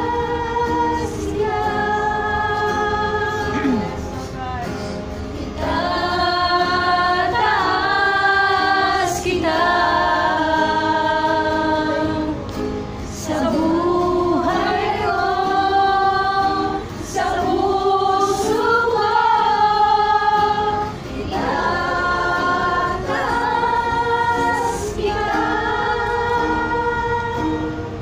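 Several women singing a worship song together, with held notes and brief pauses between phrases, over a light instrumental backing.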